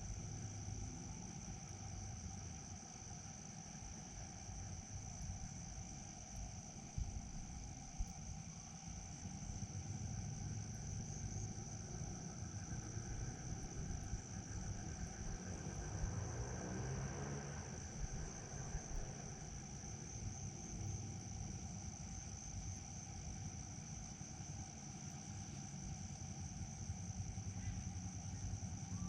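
Steady chorus of insects, a continuous high-pitched trill like crickets, over a low background rumble.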